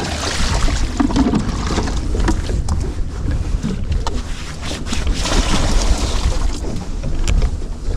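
Wind buffeting the microphone and water noise on a small fishing boat at sea, over a steady low rumble, with a few small knocks.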